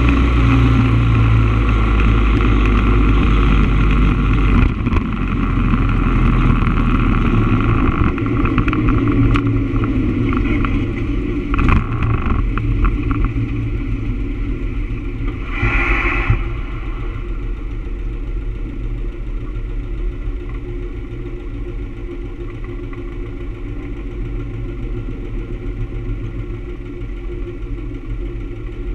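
Motorcycle engine running under way with road noise, then dropping to a steady idle about halfway through as the bike comes to a stop. A brief high squeal comes just before it settles.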